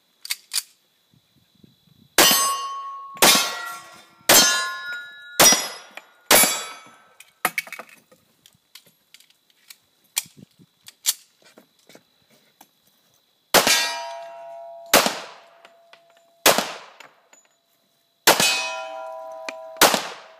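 Single-action revolver shots, ten in all: five about a second apart, a pause filled with faint clicks, then three more and a final two. Most shots are followed by the ring of a struck steel target.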